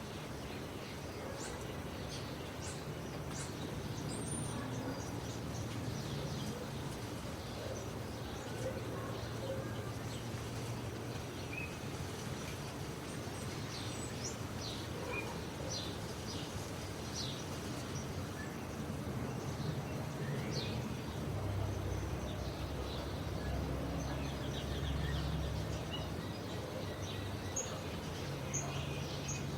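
Rural outdoor ambience: birds chirping in short, scattered calls over a steady background rumble. The low rumble grows stronger about two-thirds of the way through.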